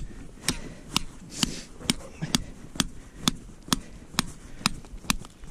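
A tent peg being hammered into lake ice: sharp, evenly spaced strikes, about two a second.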